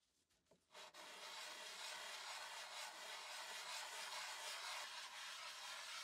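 Round wooden part of an antique Peugeot coffee grinder being rubbed by hand on a sheet of sandpaper, a steady gritty rasping that starts about a second in after a few light handling sounds.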